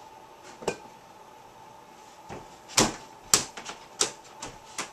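Mini basketball striking the arcade hoop and bouncing around the room after a missed underhand shot: two loud knocks about three seconds in, followed by a quick run of lighter knocks.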